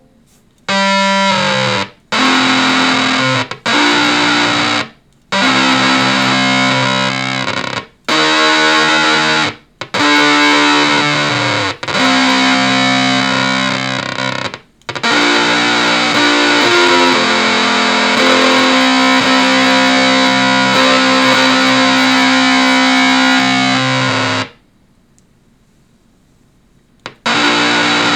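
Electric guitar played through a small low-power Acorn Amps Biz Card amplifier into an old speaker in a box. It plays a series of short chord phrases with brief breaks between them, then a longer continuous passage that cuts off about three-quarters of the way through. After a few seconds of near silence the playing starts again near the end.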